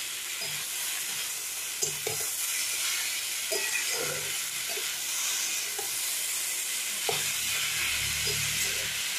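Shredded bottle gourd sizzling in hot oil in a kadai as a spatula stirs and tosses it, with the spatula scraping and knocking against the pan every second or two.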